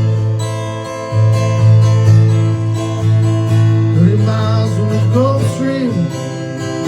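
Acoustic guitar music, strummed chords, with a bending melody line joining about four seconds in.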